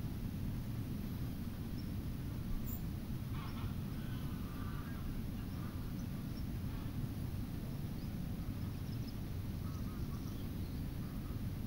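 Outdoor ambience: a steady low rumble with faint, brief bird calls scattered through it, and a short run of calls about three and a half seconds in.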